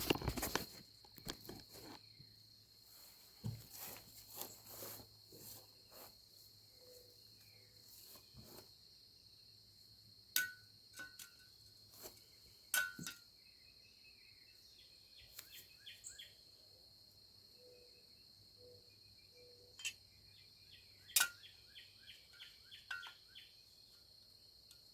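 Hammer tapping on metal as S-cam bushing parts are driven into place on a trailer brake: scattered single taps a second or more apart, some leaving a short metallic ring, with a quicker run of taps near the end.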